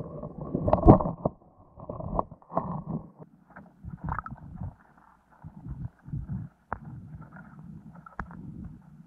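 Muffled underwater audio from a camera in a waterproof housing: low rumbles and irregular knocks, the loudest about a second in, with a few sharp clicks later on.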